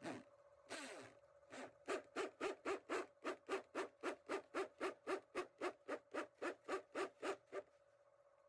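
Hand-held electric drill boring into buffalo horn: two short bursts, then the drill runs in short regular pulses, about four a second, for some six seconds before stopping shortly before the end.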